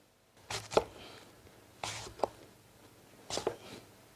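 Metal apple corer cutting into a raw green apple on a chopping board: three short cutting strokes about a second and a half apart, each ending in a sharp click.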